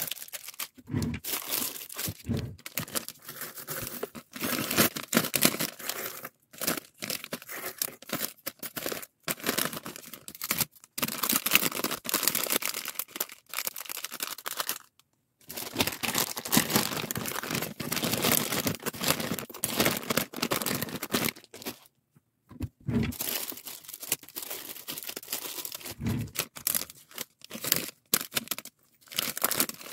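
Clear plastic packing bags crinkling and rustling as they are handled, with the light clatter of fused plastic-bead keychains and their metal key rings. The rustle stops dead twice, for a moment each time.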